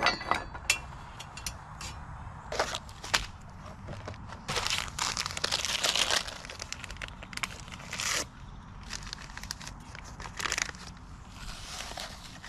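Crinkling and rustling of something being handled, broken up by scattered sharp clicks and knocks, with a longer stretch of rustling in the middle.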